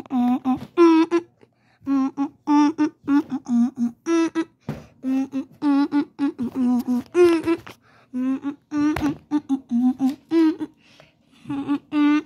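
A person humming a wordless tune in short, choppy notes with brief pauses between phrases.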